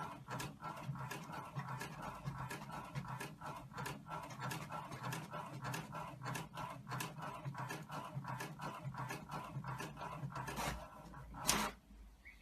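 A pet panting rapidly, a quick steady train of short breaths at about three or four a second, which stops near the end.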